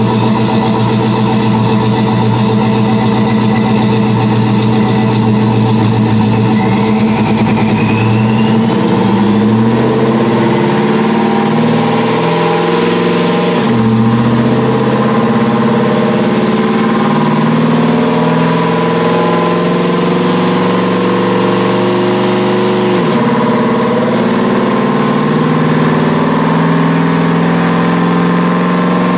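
Supercharged 5.3-litre V8 of a Chevrolet Silverado running under load on a chassis dyno. The engine climbs in pitch, drops sharply on an upshift about halfway through, climbs again and drops again on another shift about three-quarters of the way in.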